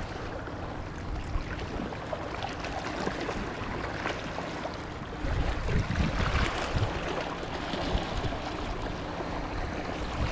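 Small waves lapping and washing over shallow shoreline rocks, a steady watery wash that grows louder about halfway through.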